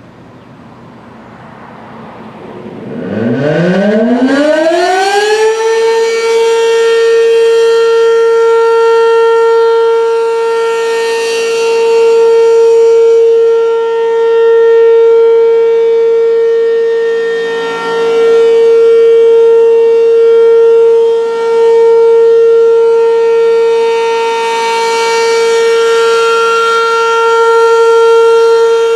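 American Signal RM-127 rotating mechanical outdoor warning siren starting up for a test. Its pitch winds up steeply over about three seconds, then it holds one steady wail, its loudness swelling and fading every few seconds as the rotating horn sweeps past.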